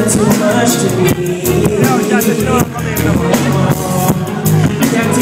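Live band playing a song: drum kit keeping a steady beat and an electric bass guitar, with a singer's voice over them.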